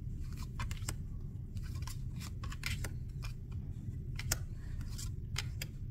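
Chrysalis Tarot cards being flipped through by hand one at a time: a string of light, irregular snaps and slides of card stock, over a steady low hum.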